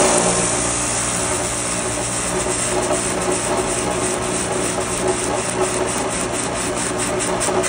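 Electric on-car wheel spinner driving a truck's front tire through a roller pressed on the tread, running with a steady motor hum. A rhythmic ticking from the spinning wheel grows quicker over the last few seconds as the tire speeds up.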